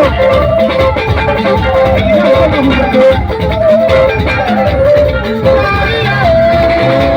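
Loud band music: melodic guitar lines over a steady beat, with a held note near the end.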